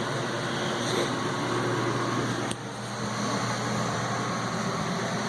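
Steady whir and hum of a camper's air conditioner running together with a microwave oven, with a single sharp click about halfway through.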